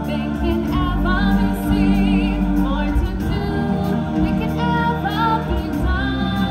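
Choir and solo voices singing a stage-show song over full backing music, with wide vibrato on long held notes.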